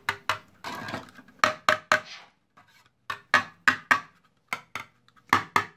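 Thin-walled 3D-printed PLA fuselage nose parts clacking as they are handled: a string of about fifteen sharp, hollow plastic knocks and taps, with a brief rustle about a second in.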